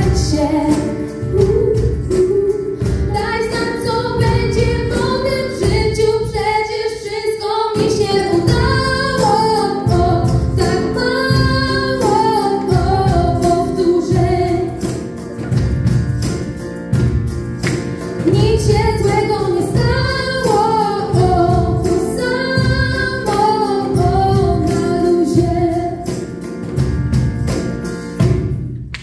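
Two young female voices singing a song live into microphones, backed by a band with a steady drum beat. The music fades and breaks off at the very end.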